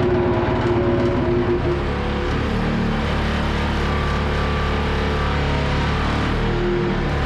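John Deere 323E skid steer's diesel engine running while it powers the vibratory roller attachment. Its sound changes about two seconds in, then settles into a steady low drone.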